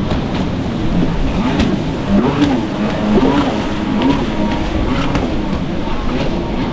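Stand-up jet ski engine revving up and down, its pitch rising and falling several times as the rider works the throttle through turns.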